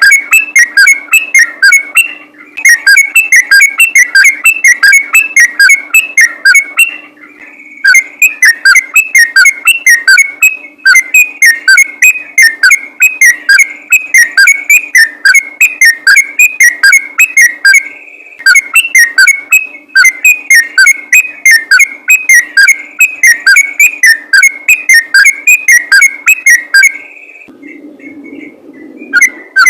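Yellow-vented bulbul (trucukan) singing a fast, near-continuous run of loud whistled notes, broken by a few short pauses, over a faint steady hum.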